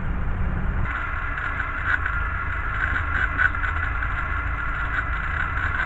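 Pressure washer's small gasoline engine running steadily. About a second in, a steady hiss sets in over it as the high-pressure water spray starts.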